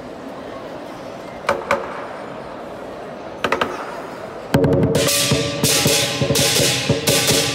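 Lion dance percussion band: after a murmuring crowd, two single ringing cymbal strikes come about a second and a half and three and a half seconds in, then about four and a half seconds in the drum, cymbals and gong start up together in a loud, fast beat.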